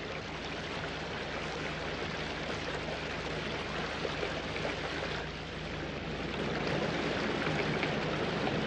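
Rushing river water, a steady hiss that grows a little louder in the second half.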